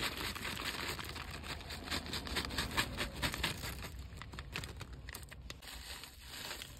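Crinkling of a plastic salad-topping packet as it is shaken out, with tortilla strips and pumpkin seeds spilling onto the salad. The crackling grows quieter toward the end.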